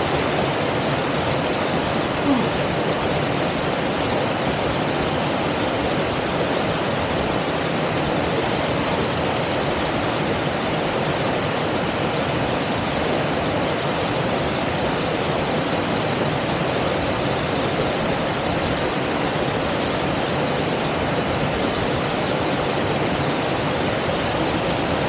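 Steady rush of stream water pouring over a low check-dam weir into a pool, an even unbroken noise.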